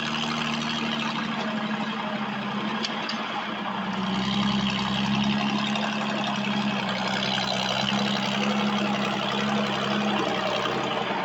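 International 806 tractor engine running steadily, getting louder about four seconds in.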